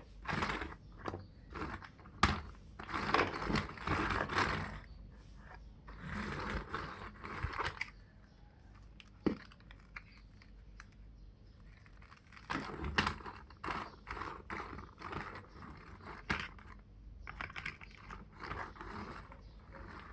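Plastic building bricks clicking, rattling and snapping together as they are handled and pressed into place, in irregular clusters of sharp clicks with a quieter stretch in the middle.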